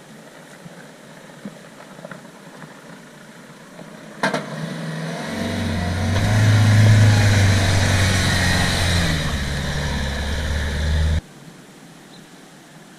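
A Great Wall four-wheel drive's engine working under load on a steep off-road track. After a knock about four seconds in, it builds to a loud steady drone and then cuts off suddenly near the end.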